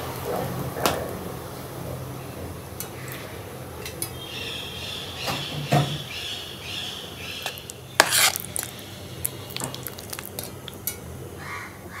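Kitchen clatter: metal utensils clinking and knocking against pots and dishes, with a run of quick clinks about two-thirds of the way through, over a steady low hum.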